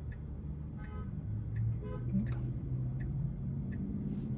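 Steady low road and drivetrain hum inside a Tesla Model 3's cabin while driving, with faint short ticks recurring about every half second.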